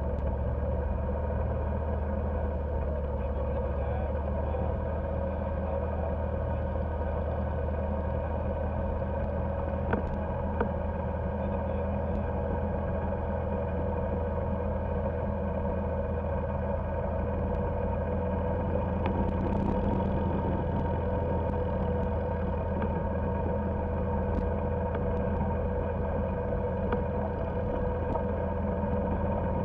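Golf cart running at a steady speed on pavement, its motor droning evenly with no change in pitch.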